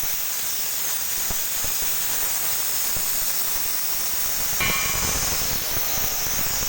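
Compressed oxygen hissing steadily out of a cylinder valve as the cylinder is emptied of the gas still left in it before the valve is repaired. About two-thirds of the way through there is a brief metallic clink with a short ring.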